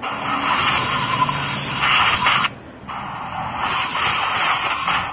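Compressed-air blow gun hissing through a thin nozzle pushed into a motorcycle's spark plug hole. It comes in two long blasts, with a short break about two and a half seconds in, blowing metal shavings out of the freshly re-tapped plug thread.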